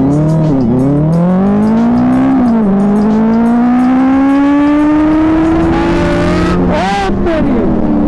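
Benelli TNT 600i's inline-four engine under hard acceleration, its pitch climbing with the revs. It drops sharply at upshifts about half a second and two and a half seconds in, then climbs slowly for several seconds. Near the end the revs flick up briefly and then fall away.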